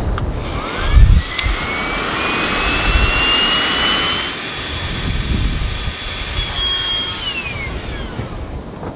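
A machine's whine rising steadily in pitch for about three seconds, holding, then falling away near the end, over gusty wind rumble on the microphone.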